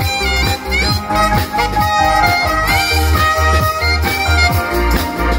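Live band music: an alto saxophone plays a melody with pitch slides over drums, congas and a steady bass beat.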